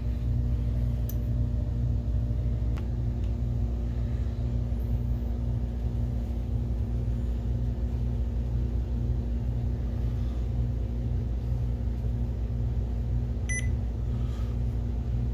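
BenQ MH741 DLP projector starting up on a test lamp, its cooling fans running with a steady hum and a few steady tones. A couple of faint clicks near the end.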